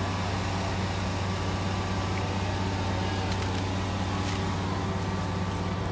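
A bus engine idling: a steady low hum that does not change, with a couple of faint ticks about three and four seconds in.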